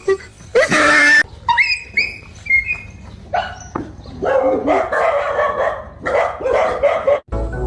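Dog barking and yelping at a toy tiger swung toward it, with a few short high yelps that fall in pitch, then a quicker run of barks.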